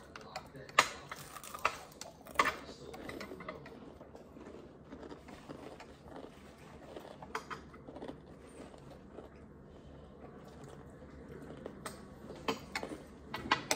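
Close-up chewing of crispy fried chicken, with a few sharp clicks, loudest about a second and two seconds in and again near the end.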